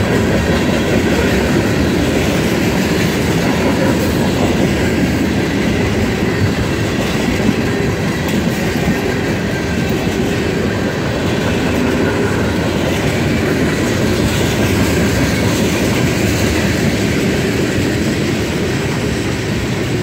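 Freight train cars, tank cars and covered hoppers, rolling steadily past on steel wheels, with a continuous rumble and clickety-clack over the rail joints.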